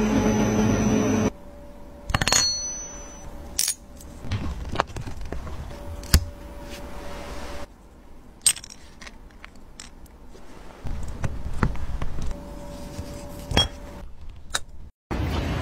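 A steel watch bezel ring on a bench polishing wheel for about the first second, then cut off. After that come scattered sharp metallic clicks and clinks as small steel watch parts are handled and fitted in a press, a few of them ringing on for about a second.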